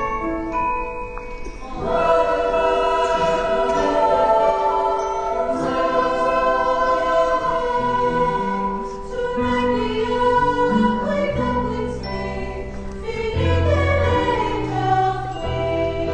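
Voices singing together in chorus over an instrumental accompaniment, a song number in a stage musical, with low bass notes joining about halfway through.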